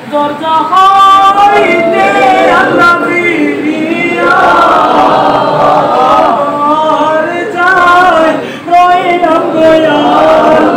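A congregation of men singing a devotional milad chant together.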